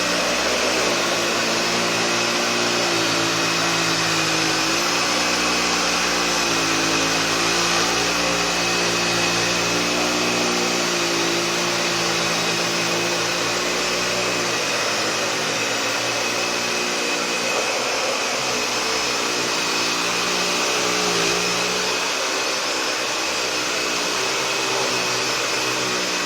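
Dyson DC65 Animal upright vacuum cleaner running steadily on a car floor mat: a constant motor rush with a steady high whine, its lower hum wavering slightly in pitch now and then.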